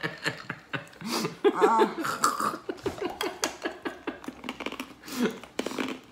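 Laughter and heavy breathing from people reacting to the burn of a very hot sauce, with a long run of quick laughing pulses in the middle.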